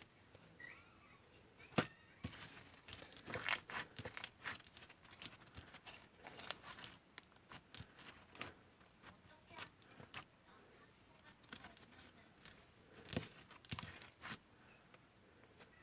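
Slime being played with by hand: faint, irregular sticky clicks, pops and crackles as it is pressed and stretched, with a few louder pops.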